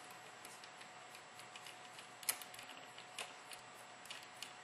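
Faint, scattered small clicks and ticks of hard plastic and metal parts of a Cyma CM-032 M14 airsoft rifle being handled while a small screw is set, with a sharper click a little over two seconds in and another about a second later.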